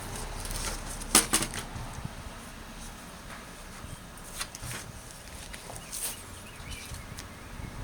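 Sharp clicks and light handling noise as neodymium block magnets are set down and catch on the steel rotor plate, the loudest pair of clicks about a second in.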